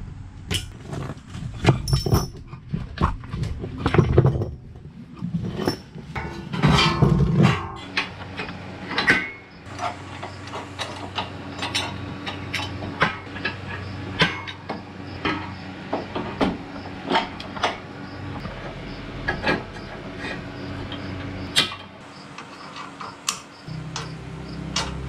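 Repeated metallic clinks, clicks and knocks of hand work: a hydraulic cylinder's pins and fittings being handled as it is fitted as a top link on a tractor's three-point hitch and its hoses connected.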